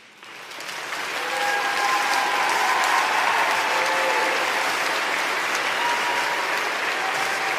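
Crowd applauding, dense steady clapping that swells up over the first second or so and then holds.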